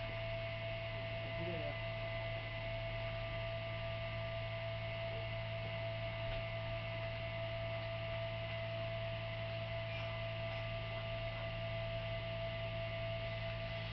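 Steady electrical hum: a constant low drone with a fixed higher whine over faint hiss, unchanging throughout.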